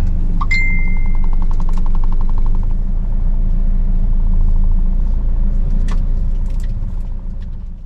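Ambulance engine and road noise heard inside the cab, a steady low rumble. About half a second in comes a short high beep, followed by a rapid buzzing for about two seconds.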